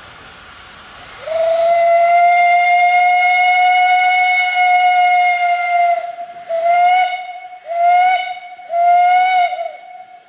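Steam whistle on a ridable miniature live-steam locomotive. It opens with a hiss about a second in, then gives one long single-note blast of about five seconds and three short blasts.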